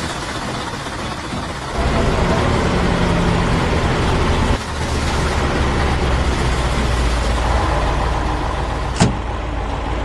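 Heavy motor vehicle engine running steadily, with a deeper rumble coming in about two seconds in. A single sharp click near the end.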